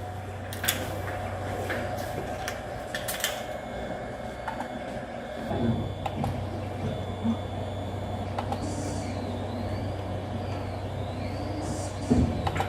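A 3D printer running: a steady mechanical hum with a few sharp clicks early on, then repeated high whines that rise and fall as the stepper motors change speed.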